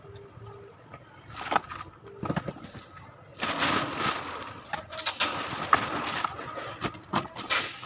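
Plastic bags and packaged goods rustling and crinkling as they are handled and packed, with a few sharp knocks; the handling gets busier and louder from about three and a half seconds in.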